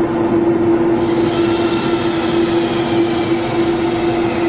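Commercial kitchen exhaust fan running: a steady hum with a rushing-air noise, the hiss growing brighter about a second in.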